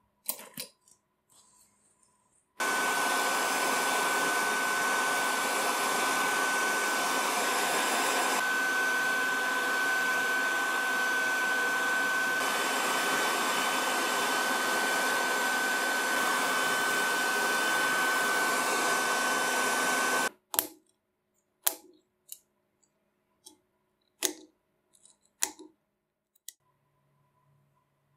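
Heat gun blowing steadily with a constant high whine, shrinking a heat-shrink sleeve onto a tool grip; it starts a couple of seconds in and cuts off after about eighteen seconds. Then a handful of separate small snips from small scissors trimming the sleeve's edge.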